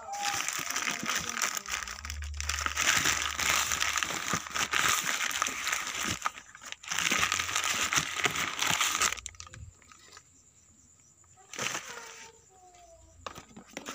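Plastic bags and cardboard crinkling and rustling as a hand digs through a box of packaged motorcycle spare parts. The rustling is steady and dense, then drops to faint handling with a few soft knocks about nine seconds in.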